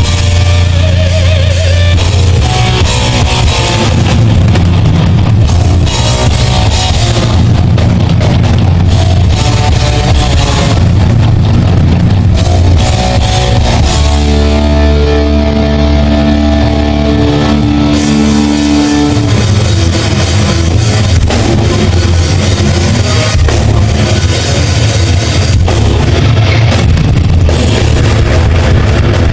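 Rock band playing loud electric guitars and drum kit. About halfway through, the cymbals drop out and a held guitar chord rings for a few seconds, then the full band comes back in.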